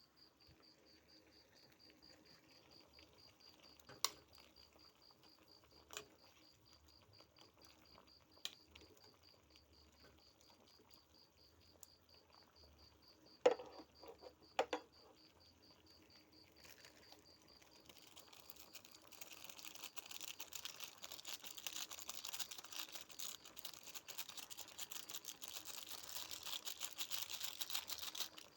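A cricket chirps in a fast, even pulse through the first half while a few sharp kitchen knocks and clicks sound, the loudest two about a second apart. A little past halfway a steady hiss rises and holds to the end.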